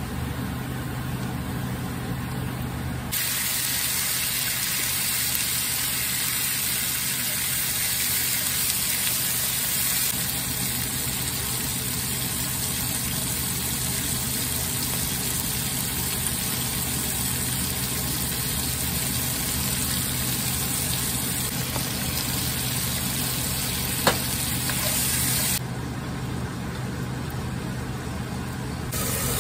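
Garlic and then green beans sizzling in a hot nonstick frying pan, stirred with a wooden spatula, over a steady low hum. One sharp tap comes late on.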